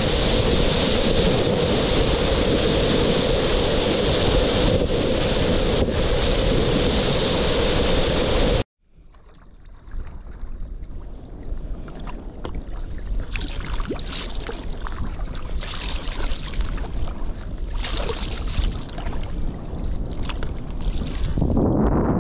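Whitewater of a Colorado River rapid, a loud, even rush of water from a kayak-mounted camera. It cuts off suddenly about nine seconds in. Quieter rushing water with many small splashes then builds back up.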